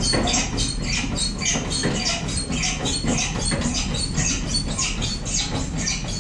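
Hand-operated hoist on a steel gantry crane being worked to take up the lift on a lathe, giving a rapid, uneven run of light metallic clicks and rattles.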